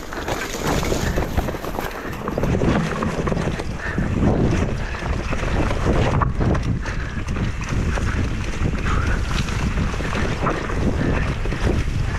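Wind buffeting the microphone of a camera on a mountain bike riding fast downhill, with the tyres rolling over a rough grassy trail and grass and brush brushing past. The rush builds in the first second or so, then holds steady.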